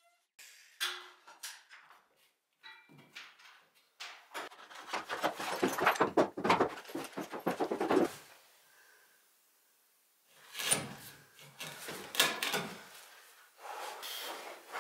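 Woodworking on a timber beam: irregular knocks and rasping scrapes in bursts, busiest in the middle, with a lull of about two seconds before more bursts near the end.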